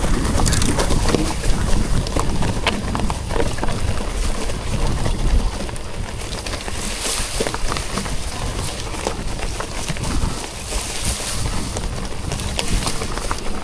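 Mountain bike riding down a rough dirt trail: tyres rolling and crunching over dirt and stones, with continual rattles and knocks from the bike.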